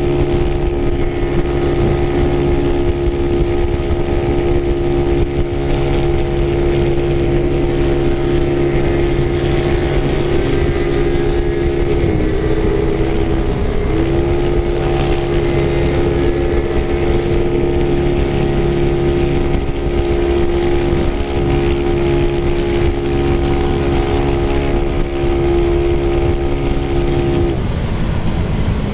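Yamaha Mio scooter engine, bored up to 130 cc, running steadily while the scooter cruises. Its note dips briefly about twelve seconds in, picks back up, and drops away near the end.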